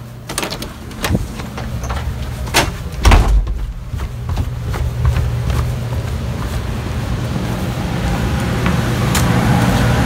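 A door being handled and footsteps, with a heavy thump about three seconds in. Then the steady hum of the furnace blower fan, running again on a new capacitor, grows louder toward the end.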